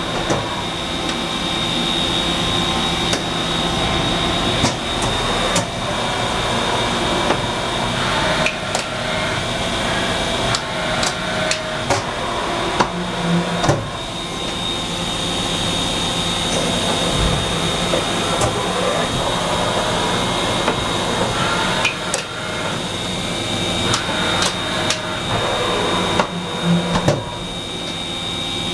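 Mori Seiki SH-50 horizontal machining centre running under no cut, its spindle turning and its table moving along its axes. A steady high whine and a machine hum run throughout, with scattered clicks and knocks, the loudest around the middle and near the end.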